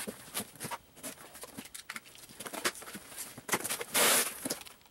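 Cardboard box being opened: a utility knife cutting along the end of the box with scattered scrapes and clicks, then a short, loud scrape of cardboard about four seconds in as the lid is pulled open.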